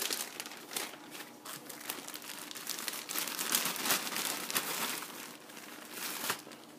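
Thin clear plastic bags holding aquarium plants crinkling and rustling as they are handled, in irregular bursts that are densest about halfway through.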